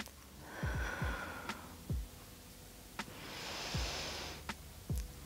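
A person breathing hard through a core-strengthening squeeze: a hissing breath about half a second in and another longer one around three seconds in, over a few soft low thumps.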